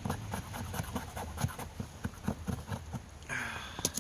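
Irregular light clicks and knocks from handling a metal multitool, then a short rasping scrape about three seconds in.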